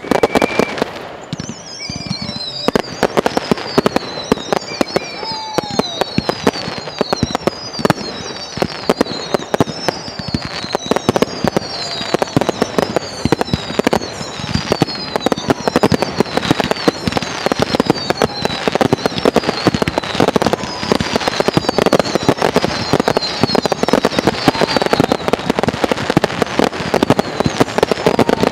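Low-level fireworks display: a dense, continuous crackle of many small bursts. Over it runs a string of high whistles, each falling in pitch, roughly one a second.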